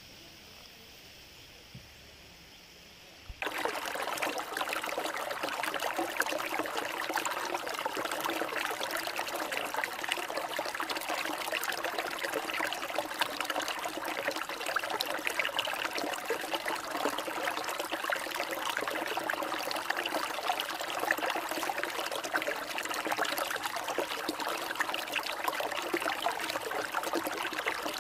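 Shallow river water running and splashing over boulders in small cascades, a steady babbling stream noise. It starts suddenly about three and a half seconds in, after a few seconds of faint background.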